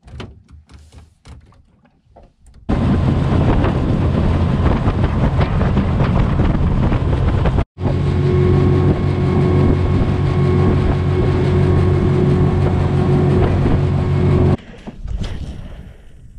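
Boat's outboard motor running at a steady speed, with rushing wind and water, starting about three seconds in, breaking briefly a little past halfway and cutting off suddenly near the end. Before it come a few knocks and handling sounds in the boat.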